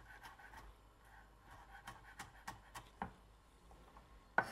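Chef's knife chopping an onion finely on a wooden cutting board: light, irregular taps of the blade on the board, a few a second, with one louder chop near the end.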